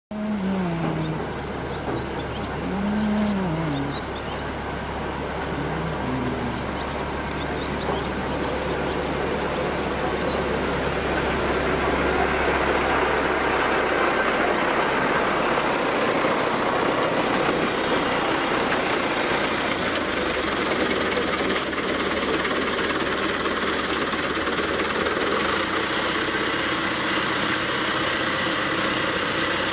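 A motor engine running, its pitch rising and falling a few times in the first six seconds, then giving way to a steady rushing noise.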